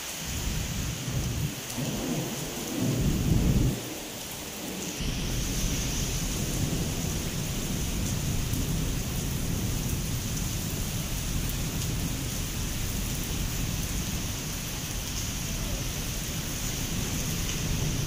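Heavy pre-monsoon rain pouring onto a concrete yard, a steady hiss of rain with deep rumbling beneath it. The rumbling swells and is loudest about three seconds in. About five seconds in the sound shifts to a denser, even rain hiss over a constant low rumble.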